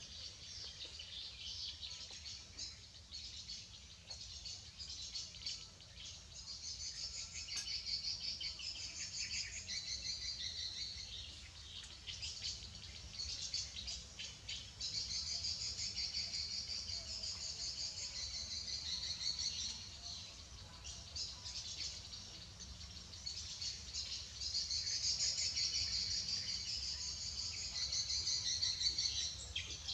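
Outdoor insect chorus: a high, dense buzzing that swells and fades in stretches of several seconds, with birds chirping through it.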